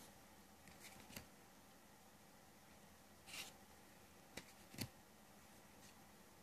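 Faint handling of a deck of fortune-telling cards: a soft swish of a card sliding off the pile about three seconds in, and a few light clicks and taps of cards being lifted and set down, one about a second in and two close together between four and five seconds.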